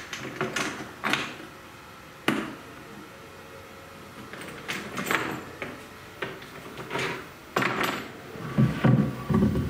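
Hardwood board being handled on a CNC router bed: scattered knocks, clicks and short scrapes of wood against the machine, with a few heavier thumps near the end.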